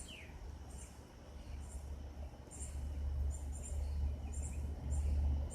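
Quiet outdoor ambience: short, high-pitched chirps repeat about once or twice a second, over a low rumble that grows louder in the second half.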